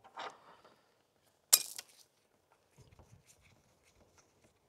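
A single sharp metallic clink about a second and a half in, from hands and tools working at a hydraulic hose fitting on an excavator boom, followed by faint light ticks and handling noise.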